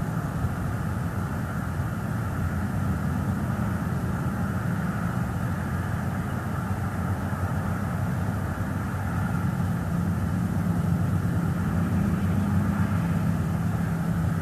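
A steady low engine drone with a faint hiss behind it.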